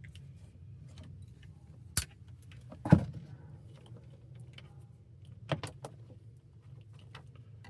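A few sharp clicks and knocks from handling a wall thermostat and a jumper wire at its terminals: one about two seconds in, a louder knock about a second later, and a quick pair of clicks a couple of seconds after that.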